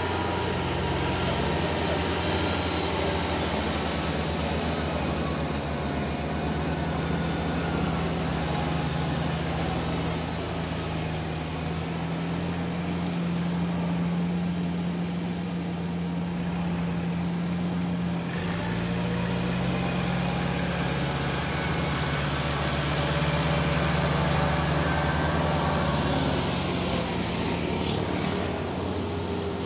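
Diesel engines of farm tractors, a Kubota among them, running steadily under load while plowing a flooded rice paddy; the engine note shifts about eighteen seconds in.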